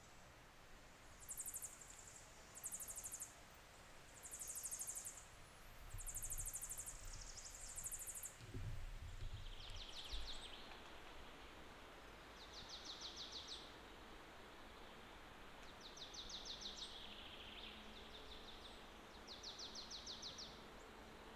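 Quiet outdoor ambience with short, high, buzzy trills of rapid pulses repeating every second or two. After about ten seconds the trills come at a lower pitch. A brief low rumble comes about eight seconds in.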